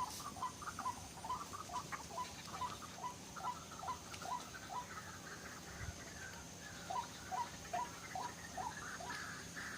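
White-breasted waterhen calling: a steady series of short, rising squeaky notes, about two or three a second, that pause briefly in the middle and then resume.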